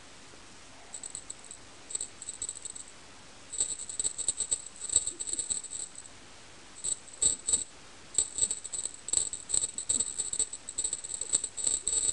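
A small jingle bell shaken in irregular bursts of jingling, sparse at first and busier from about three and a half seconds on.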